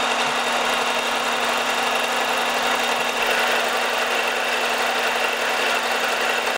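Homemade fly cutter face-milling a steel plate on a milling machine: the spindle runs at a steady pitch, with a constant low hum under the hiss of the cut.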